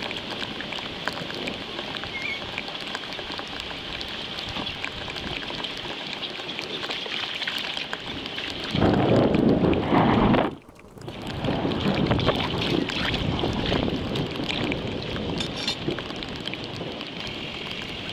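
Heavy rain falling steadily on a flooded street. About halfway through, a louder, deeper rush lasts a second and a half and cuts off abruptly.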